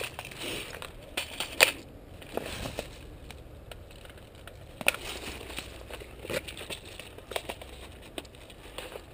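Irregular crunching and crackling, like movement through dry undergrowth, with a few sharper clicks, the loudest about a second and a half and five seconds in.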